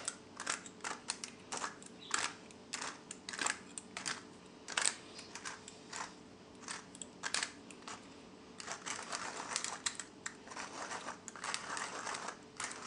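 Brass crank-handle pepper mill grinding peppercorns: a run of dry crunching clicks as the crank turns. The clicks come faster and closer together in the last few seconds.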